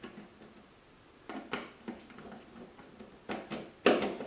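Scattered clicks and knocks of hands and a screwdriver working on a metal amplifier chassis while trying to fit screws, with the loudest knock near the end.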